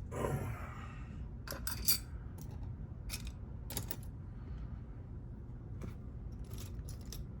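Small metal lock parts and tools clicking and clinking as a JPM 405 pump lock is handled to be taken apart: a handful of sharp, scattered clicks a second or so apart.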